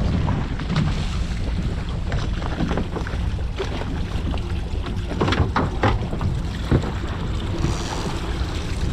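Yamaha 250 outboard motor running steadily as the boat cruises, a low rumble under wind rushing across the microphone, with a few sharp knocks about five to seven seconds in.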